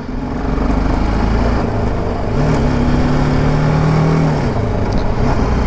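Motorcycle engine running while riding, its pitch rising about two seconds in, holding, then dropping back a little after four seconds, over steady wind noise.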